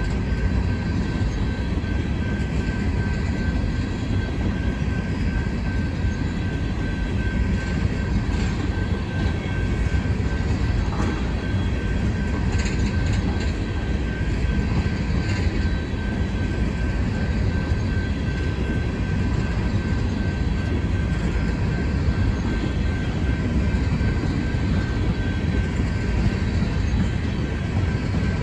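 Empty coal cars of a BNSF coal train rolling past, a steady rumble of steel wheels on rail.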